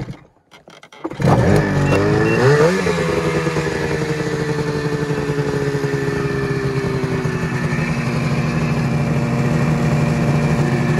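Ski-Doo 600RS race snowmobile's two-stroke engine starting about a second in, revving briefly with a rising pitch, then settling into a loud, steady fast idle that eases down slightly in pitch.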